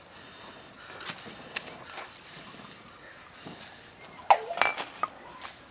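Split firewood sticks knocking and clacking together as they are set over a small fire, with rustling of dry leaves. A louder cluster of sharp knocks comes about four and a half seconds in.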